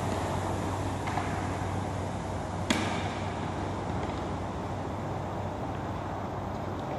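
Workout noise from a rowing machine and kettlebell exercises: a steady hum and whoosh, with two sharp knocks about a second and nearly three seconds in.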